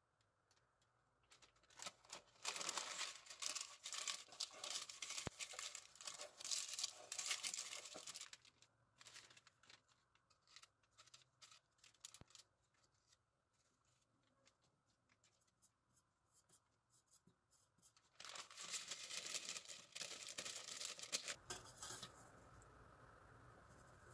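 Parchment paper being torn and crinkled while it is pressed into a round metal cake pan, in two long spells of rustling with scattered small paper clicks between.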